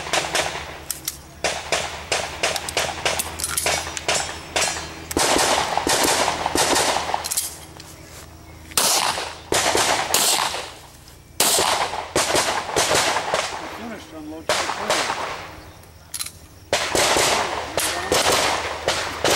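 Handgun shots fired in rapid strings, several a second, with brief pauses between strings as the shooter moves through a practical shooting stage.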